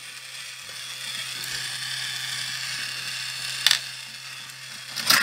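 Steady hum of a battery-powered Plarail toy train's motor and gears running, with two sharp clicks of small plastic balls being handled, one after about three and a half seconds and one near the end.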